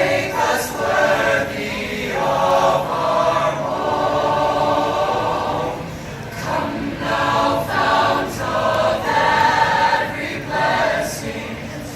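Choir singing a song, several voices holding notes together.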